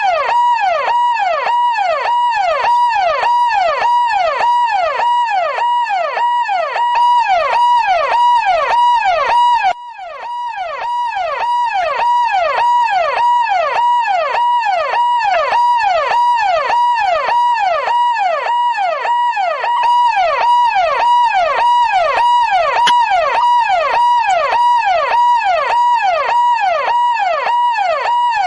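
Police car siren sweeping up and down in quick repeated cycles, a little over one a second, over a steady high tone. The sound drops briefly about ten seconds in, then comes back.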